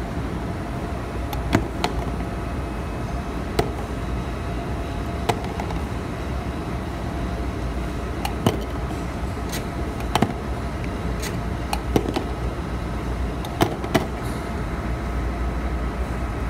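Shrink sleeve labeling machine running with a steady mechanical hum, while labelled plastic tubes drop off its discharge chute into a cardboard box every second or two, each landing as a sharp click.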